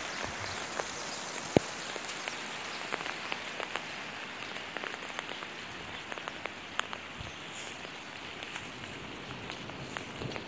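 Steady rain falling: an even hiss with many small drops ticking at random, and one sharper tap about one and a half seconds in.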